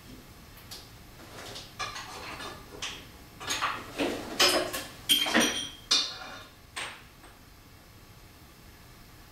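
Irregular metallic clinks, knocks and scrapes of hand tools and metal parts worked on in a car's engine bay while bolts are fitted and tightened. Some strikes ring briefly, the loudest come in the middle, and they stop a couple of seconds before the end.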